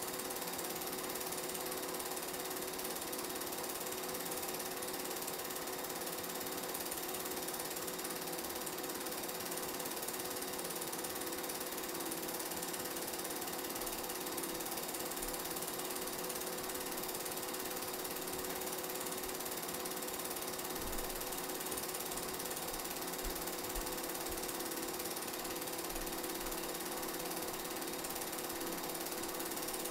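Steady, unchanging mechanical whirring and clatter of a film projector running, the only sound on a silent game film's transfer.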